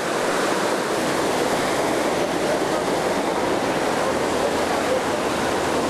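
Mountain stream rushing steadily through its channel, an even wash of water noise.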